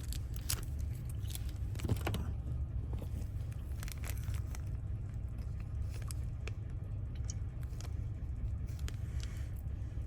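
Light metal clicks and ticks of small lock wafers and a key being handled in a van door lock cylinder, scattered irregularly through, over a steady low hum.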